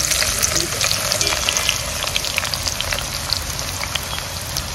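Sliced onions frying in hot oil in a cooking pot, a steady sizzle full of small crackles.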